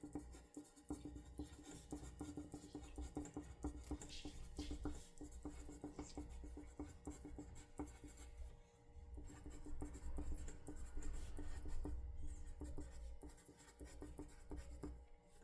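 Faint pen writing on paper: a dense run of small scratching strokes and taps, over a low steady hum.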